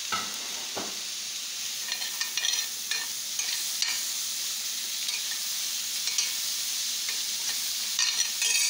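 Machaca with chopped bell pepper, onion and tomato sizzling in a stainless steel skillet, with a spoon stirring it and scraping against the pan now and then, several scrapes close together near the end.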